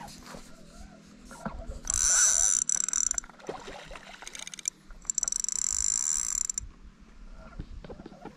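Fishing reel whirring in two bursts of about a second and a half each, with small handling knocks between them.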